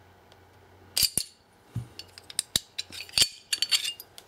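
Small steel parts of a 1911 pistol's slide clicking and clinking as the barrel bushing and barrel are taken out of the slide by hand: a sharp click about a second in, then a scatter of light clicks through the second half.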